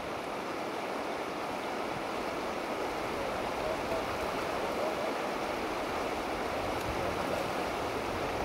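Steady rush of moving water, with no distinct splashes standing out.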